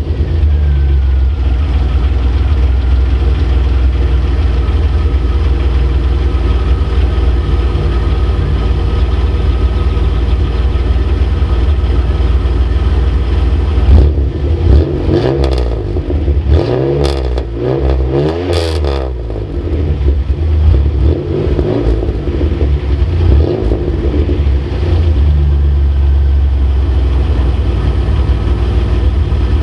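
Chevrolet Camaro's 3.8L V6 running through an aftermarket exhaust, idling steadily just after starting. From about 14 s to 20 s in it is revved up and down several times, then it settles back to idle.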